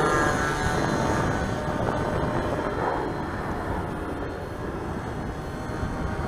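Radio-controlled Tiger Moth model's two-stroke engine buzzing overhead, its pitch dropping as it passes in the first second, then droning on at a distance. A dense low rushing noise runs underneath.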